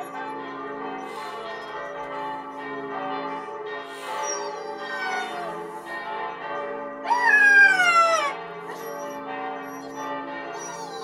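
Church bells ringing steadily while a Siberian husky howls along. Its howls slide down in pitch, and the longest and loudest comes about seven seconds in.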